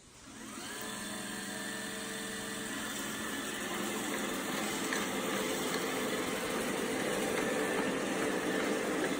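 Roomba i7+ robot vacuum's motors starting up about half a second in, a rising whine that settles into a steady whirring hum and grows slowly louder.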